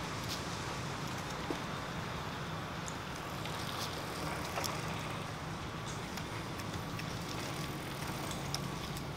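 Steady outdoor background noise with a low hum and a few faint, scattered clicks.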